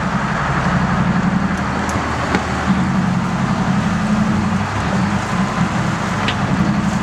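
Boat engine running steadily with a low, even drone, under a constant rush of wind and water.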